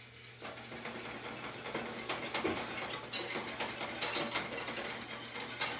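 A utensil stirring quickly in a saucepan of sauce being thickened, with rapid clicking and scraping against the pot; it starts about half a second in.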